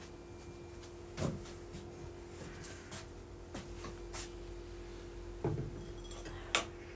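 A few scattered soft knocks and clicks from handling things at close range, over a faint steady hum.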